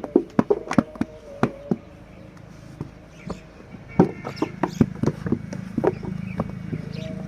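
Irregular sharp knocks and taps of manual brick-making work, several close together at times. A steady low hum comes in about four seconds in.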